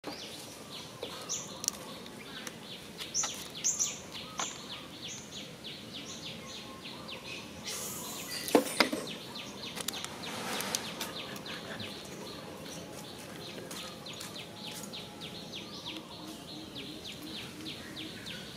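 Steady rhythmic chirping, about three pulses a second, with a few higher bird chirps in the first four seconds. About eight and a half seconds in comes a loud sharp crackle of a plastic water bottle.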